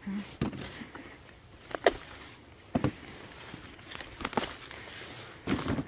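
Bell pepper plants being handled as peppers are picked by hand: a handful of sharp snaps and clicks, about a second or so apart, over faint rustling.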